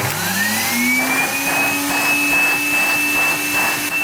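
Bagged vacuum cleaner switched on: the motor whine rises in pitch over about a second and a half as it spins up, then runs steadily with a constant rush of air.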